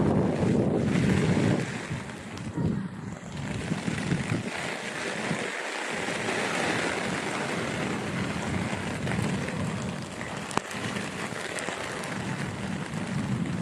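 Steady hiss of heavy rain falling, with wind buffeting the microphone in the first couple of seconds and one sharp tap about two-thirds of the way through.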